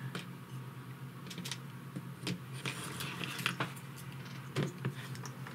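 Scattered light clicks and taps of small drone parts being handled on a workbench, over a steady low hum.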